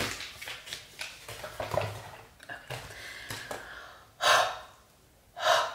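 A woman's loud breaths through an open mouth, one about four seconds in and a second just before the end, after a few seconds of faint handling sounds.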